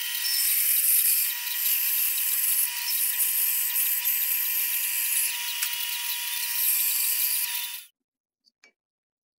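Bandsaw cutting a dried ash board along a marked handle outline: a steady high whine with the hiss of the blade through the wood, which stops abruptly about eight seconds in.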